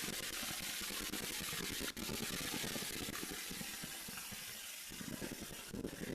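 Steady hiss of background noise, with one brief click about two seconds in.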